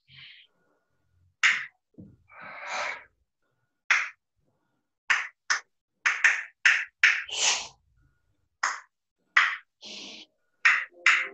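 A dancer's short, sharp breaths and hissing mouth sounds, about eighteen puffs, marking the rhythm of the movement; they come in a quick run about five to eight seconds in.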